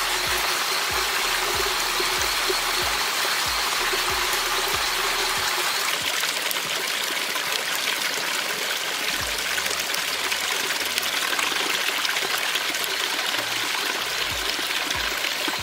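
Stream water flowing and splashing over rocks, a steady even rush.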